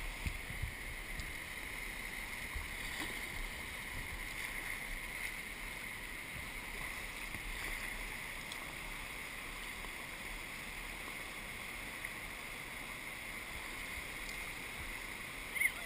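Whitewater rapids rushing steadily right at the water line, with irregular low buffeting thumps of water against the microphone.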